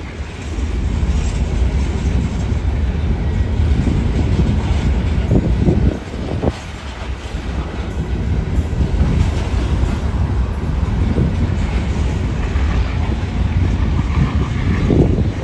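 Freight train of open-top hopper cars rolling past, with a steady low rumble and the wheels clacking over rail joints.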